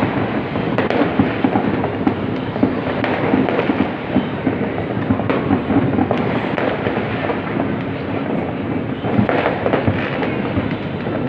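Fireworks and firecrackers going off all over a city at once: a dense, steady crackle of many distant bangs, with sharper single pops standing out here and there.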